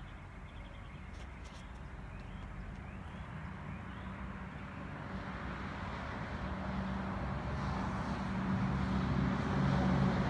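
A motor's low, steady hum with a wash of noise, growing gradually louder.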